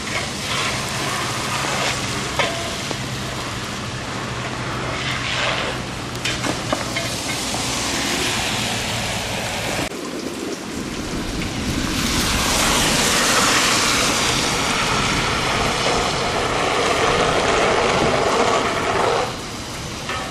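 A fire engine's diesel engine idling as a steady low hum, under the wet hiss of slush and falling snow on the street. After a break about ten seconds in, a louder hiss, like tyres on a slushy road, swells for several seconds and drops away just before the end.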